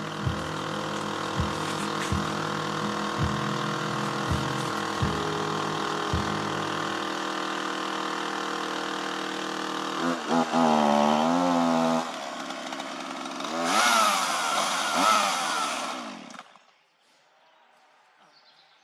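Plucked guitar music with a steady beat for the first several seconds. Then a chainsaw engine revs up and down, twice, the second run harsher and noisier, and cuts off suddenly.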